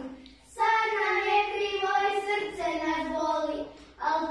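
A child's voice singing a song in long held notes, with a short break about half a second in and another just before the end.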